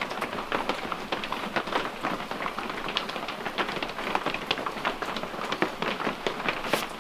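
Steady rain falling, with many irregular drops pattering and ticking close by.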